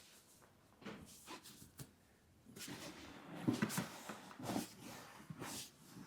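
A barber's hands rubbing and pressing on oiled hair and skin during a massage: soft, irregular rubbing and swishing strokes. They become busier from about two and a half seconds in.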